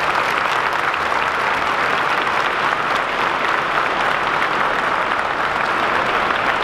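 A large crowd applauding, a dense, steady mass of clapping hands.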